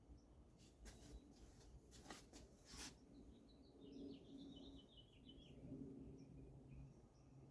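Faint head-and-neck massage sounds: a handful of brief noises from the hands working, bunched over about two seconds near the start, with faint birds chirping in the background a little later.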